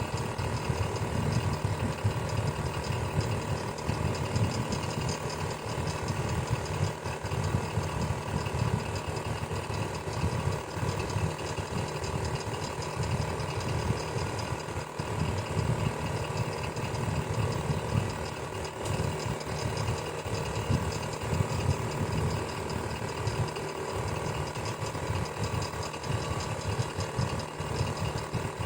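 Electric fan running steadily: a motor hum with a constant spread of steady tones, over a fast, uneven flutter low down.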